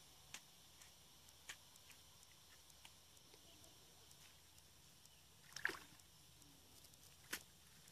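Mostly quiet, with scattered short, faint splashes of a stick prodding shallow muddy water; a louder splash comes about five and a half seconds in and a sharp knock near the end.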